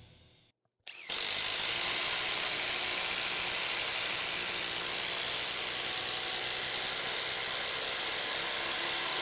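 Bosch IDH182 18 V brushless impact driver hammering continuously as it drives an 8-inch TimberLOK structural screw into stacked lumber. It starts about a second in and keeps a steady, unchanging level for about eight seconds.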